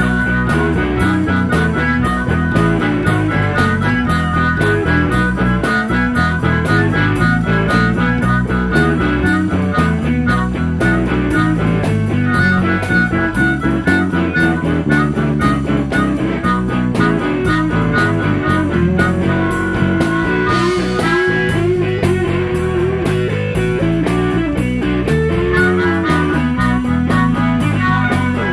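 Live blues band playing an instrumental passage: a harmonica plays long held and bent notes over electric guitar and a steady beat.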